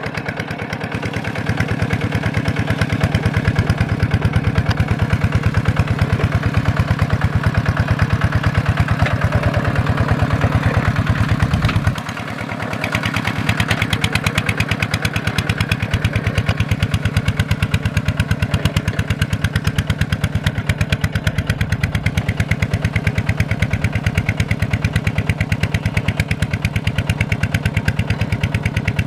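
Small Kubota single-cylinder diesel engine running with a rapid, steady beat of firing strokes. About twelve seconds in it drops sharply for a moment, then picks back up and runs on.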